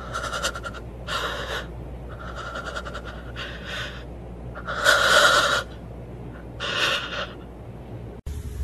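About six loud, breathy gasps or snorts, each about half a second long and roughly a second apart. The one about five seconds in is the loudest. The sound stops abruptly with a cut near the end.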